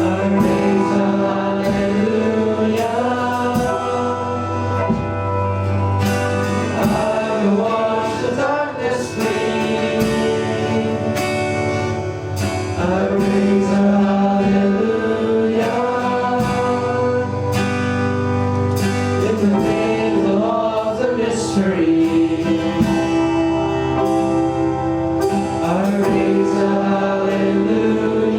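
Church worship band playing a gospel song, with singing over guitar and drums.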